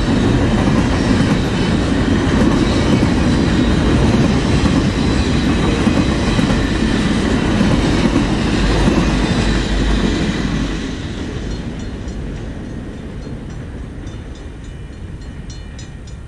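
Loaded freight-train flatcars rolling past, a steady rumble of steel wheels on rail. The last cars clear about ten seconds in and the rumble fades steadily as the train moves away.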